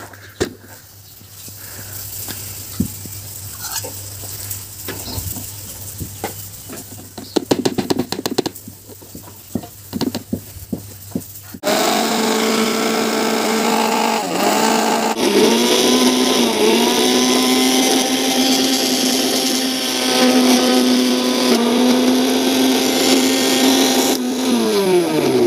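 Electric blender, first stopped, with clicks and knocks from the jar being handled for about eleven seconds, then its motor starts and runs loud while grinding chopped radish and walnuts into a paste. The motor's pitch dips a couple of times under the load and falls away as it winds down near the end.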